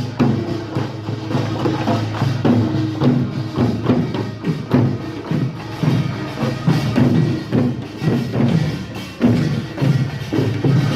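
Korean traditional funeral song (sangyeo-sori): low, sustained chanting voices over a steady rhythm of repeated knocks.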